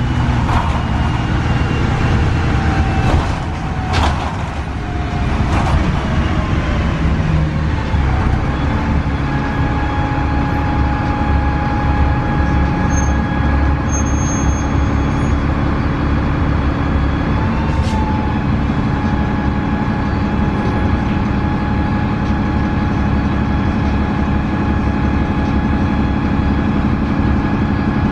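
Cummins ISC diesel engine of a 2002 Gillig Advantage transit bus running, heard from inside the bus. A few sharp clicks come in the first several seconds and one more later, and the engine settles into a steady even note.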